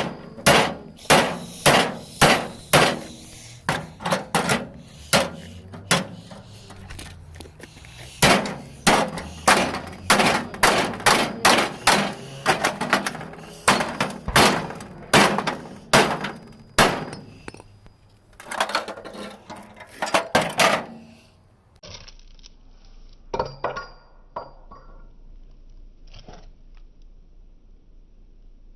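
A microwave oven being smashed: heavy blows land on it about twice a second for some twenty seconds, then stop, leaving a few scattered lighter knocks.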